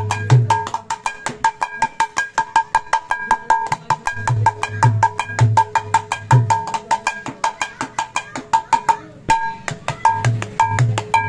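Freshly retuned khol (Bengali clay mridanga) played by hand in a fast rhythm: sharp, ringing strokes on the small treble head with deep bass strokes on the large head coming in short runs. The playing breaks off briefly about nine seconds in and picks up again.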